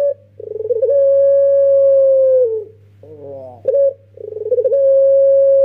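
A young puter pelung (Barbary dove) gives two long, drawn-out coos. Each opens with a quick stuttering onset, holds one steady pitch, then sags at the end, with short broken notes in between.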